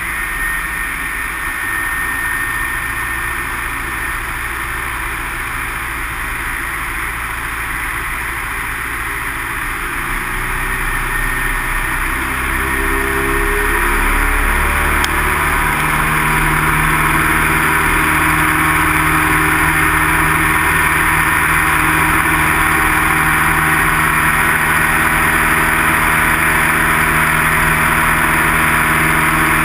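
Light single-engine propeller plane's piston engine heard from inside the cockpit, running at lower power and then rising in pitch and getting louder about twelve to sixteen seconds in as it opens up for takeoff. It then runs steadily at full power through the climb-out.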